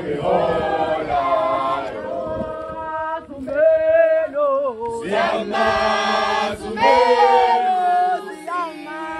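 A group of women and men singing a Zulu ceremonial song together, unaccompanied, in sung phrases with long held notes.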